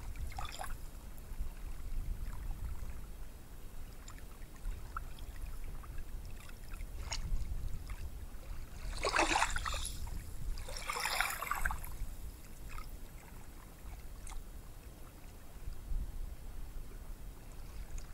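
Gentle ocean surf washing onto a beach over a low steady rumble, with two louder washes about nine and eleven seconds in.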